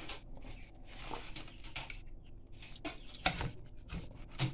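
Scattered small clicks and scrapes at an irregular pace from pliers and hands working the skin off a puffer fish on a cutting board.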